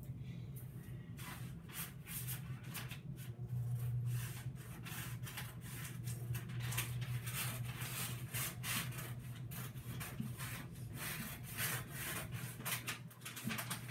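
Scissors cutting freezer paper off the roll: a long run of quick snips and scraping paper rustle, over a steady low hum.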